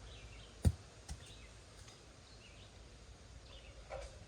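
A single sharp knock, then a lighter tap, over quiet outdoor background with faint bird chirps.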